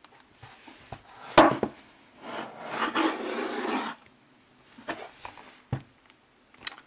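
Thick cardboard pages of a Blu-ray digibook being handled and turned: a sharp knock about a second and a half in, then a rough rubbing of cardboard sliding against cardboard for about two seconds, and a few light taps near the end.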